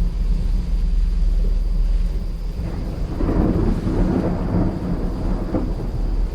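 Thunder rumbling with a steady deep roll, swelling louder and rougher about three seconds in for a couple of seconds before easing back.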